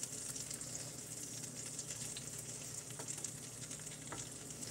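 Crumbled bluegill and crappie fillet meat sizzling steadily in a nonstick skillet while a silicone spatula stirs it, with a few faint scrapes of the spatula against the pan.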